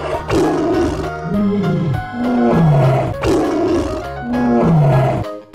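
Cartoon tiger roar sound effect, heard twice about three seconds apart over upbeat children's background music. The music cuts out near the end.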